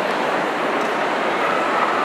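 Steady crowd murmur and hall ambience of a large, busy show hall.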